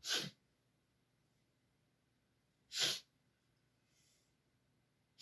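A man's short, sharp inhalations in a Strelnikova breathing exercise, one taken each time the head circles down. Three quick noisy breaths about two and a half to three seconds apart, the last at the very end.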